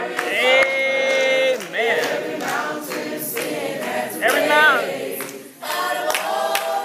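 Small gospel vocal group of male and female voices singing a gospel song, with a long held note starting about half a second in.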